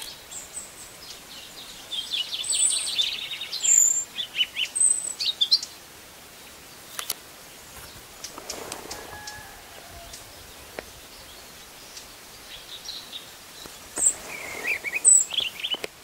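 European robin singing: quick runs of high, thin notes in two bursts, about two seconds in and again near the end. A single sharp click falls between them.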